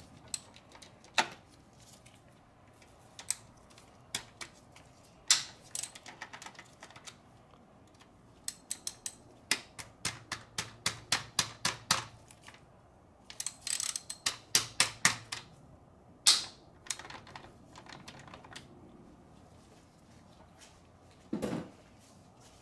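Hand ratchet wrench clicking in short runs of quick, even clicks as a socket on an extension is swung back and forth to back out a fastener, with a few separate knocks of tools against metal.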